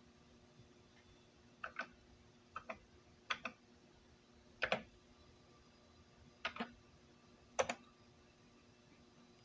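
Keys on a Coleco Adam keyboard pressed six times, each press a quick double click, over a faint steady electronic hum.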